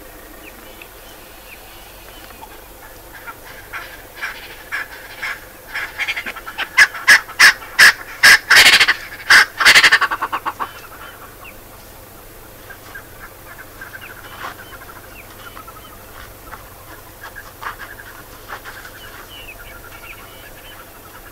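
White rhinos squealing during a shoving fight: a rapid run of loud calls that builds over a few seconds, peaks, and breaks off suddenly, followed by fainter scattered calls.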